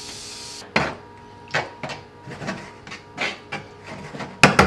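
Metal tongs knocking and clacking against a frying pan as braised onions are stirred around in it: a few irregular knocks, with the loudest ones near the end. A brief sizzle at the start stops under a second in.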